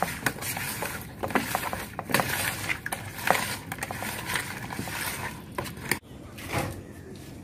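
Hands rubbing and turning raw fish pieces coated in turmeric in a plastic bowl: wet squelching, slapping and scraping against the plastic, with many small clicks. About six seconds in it cuts off abruptly to a quieter background.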